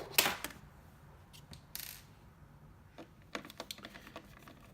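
Small metal Allen wrenches clinking and rattling as they are handled, with a sharp clatter at the start, a brief scrape about two seconds in, and a few lighter clicks after three seconds.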